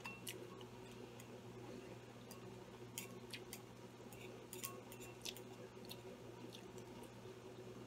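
Chopsticks tapping and scraping in a ceramic bowl, giving faint scattered clicks about once a second, with quiet chewing of noodles, over a low steady hum.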